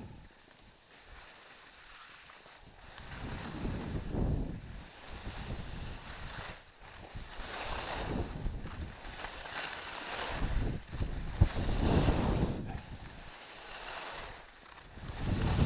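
Wind buffeting a first-person camera's microphone while skiing downhill, mixed with the hiss and scrape of skis over firm snow. It comes in uneven surges, quieter for the first couple of seconds and louder from about three seconds in.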